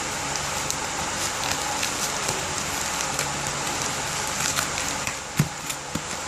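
Package wrapping being handled and opened, a crackly rustle over a steady hiss, with a few sharp taps or clicks near the end.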